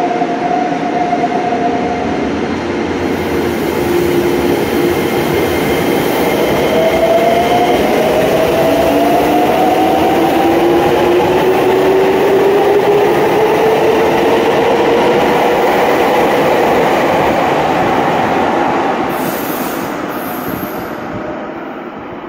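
Subway train pulling out of the station: its electric motors whine, rising steadily in pitch as it accelerates, over the rumble of the train. The sound then fades as the train leaves.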